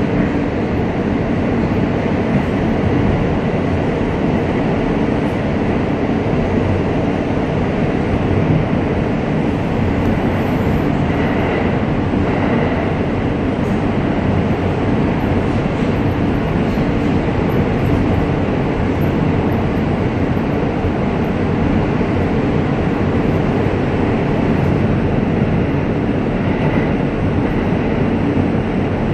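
R160A subway car running at speed through a tunnel, heard from inside the car as a steady, loud running noise from wheels on rail.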